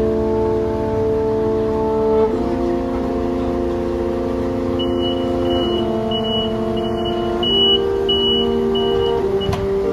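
Background music of slow, sustained chords that change every two or three seconds, with a run of short high beeps, about two a second, in the middle.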